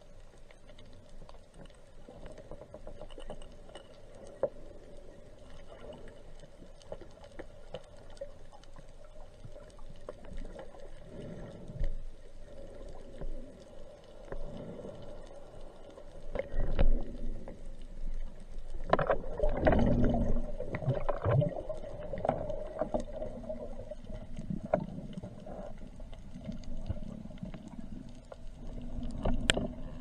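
Underwater sound through an action camera's waterproof housing during a spearfishing dive: muffled water movement with knocks and clicks over a faint steady hum, louder and busier with rumbling about two-thirds of the way through.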